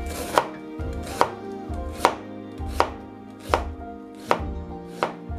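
Chef's knife slicing an onion into thin strips on a cutting board, a sharp cut-and-knock of the blade on the board about every three-quarters of a second, seven strokes in all.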